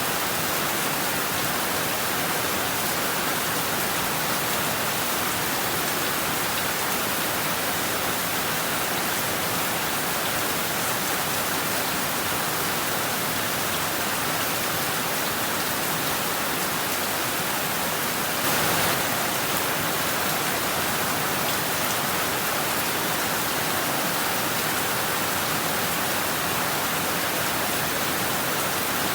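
Heavy rain falling steadily on rooftops and trees, an even hiss of drops. About two-thirds of the way through it briefly swells louder for under a second.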